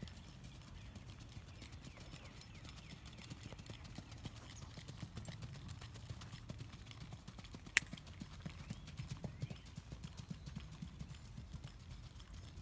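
Hoofbeats of a 2-year-old bay single-footing filly in keg shoes, gaited on a dirt track: a quick, even run of soft thuds with small clicks. One sharp click stands out about eight seconds in.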